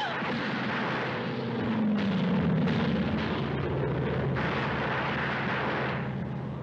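Air-raid sound effects from a 1940s film soundtrack: a warplane passing low overhead, its engine note dropping in pitch as it goes by, amid explosions and gunfire. A short falling whistle opens it.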